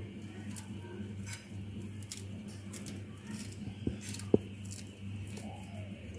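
Faint, irregular snips of kitchen scissors cutting mint leaves over a bowl, with one louder tick a little past four seconds in, under a low steady hum.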